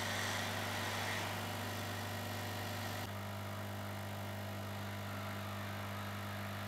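Hot air rework station blowing steadily onto a circuit-board chip to reflow its solder: a steady hiss over a low hum. About three seconds in, the hiss eases and the hum changes pitch slightly.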